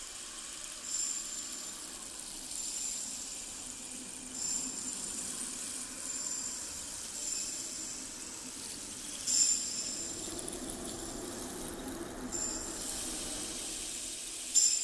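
Small bells jingling in short shakes, roughly every one to two seconds, the loudest about nine and a half seconds in and near the end.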